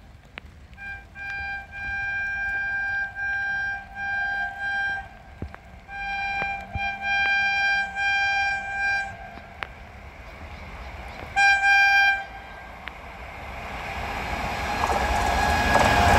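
WAP-7 electric locomotive's horn sounding in a broken run of long blasts as the express approaches at about 130 km/h, with one more short blast about eleven seconds in. The rushing rumble of the train then grows steadily and is loudest near the end as the locomotive reaches the camera.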